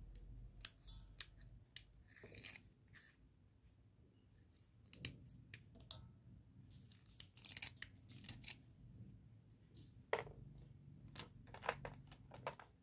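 Wet slate pencil being snipped into small pieces with a small hand cutter: irregular crisp snaps and crunches, several in quick succession about halfway through and again near the end.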